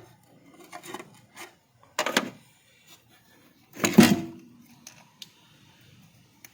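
Three separate clattering knocks about a second and a half apart, the last the loudest, as of hard objects being handled or set down.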